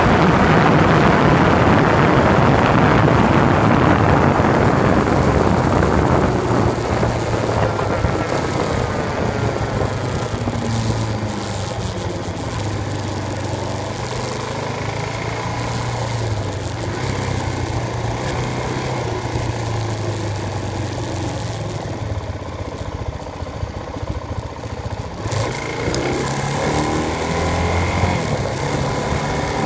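Motorcycle riding along a road: wind rushing over the microphone, loud for the first several seconds and then easing, over a steady engine hum. The engine's pitch rises and falls as the speed changes, most plainly near the end.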